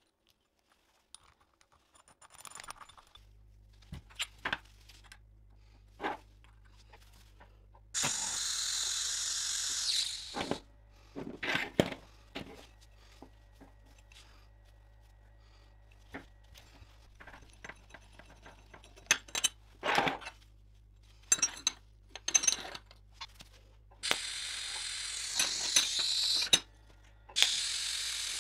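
Small steel parts clicking and clinking as they are handled, over a low steady hum that starts about three seconds in. Three hissing bursts of two to three seconds each stand out; the last two, near the end, are the sizzle and crackle of an electric welding arc tacking a small steel bracket.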